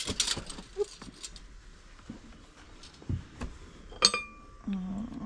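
Rustling as decorations are handled, a couple of soft knocks, then about four seconds in a single sharp clink of a ceramic piece against a porcelain plate that rings briefly. A short hummed voice sounds near the end.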